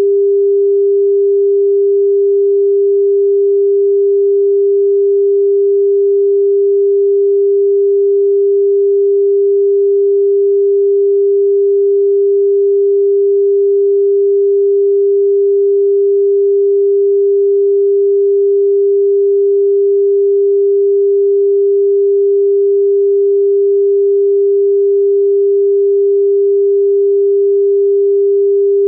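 Steady pure sine tone at about 399.5 Hz, the frequency assigned to balloonflower root (Jie Geng), held unchanged and loud with no overtones.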